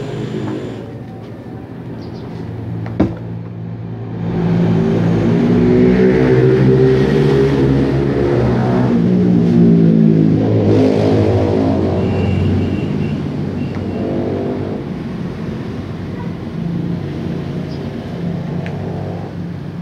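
A motor vehicle engine running and revving, its pitch rising and falling several times. A single sharp click comes about three seconds in.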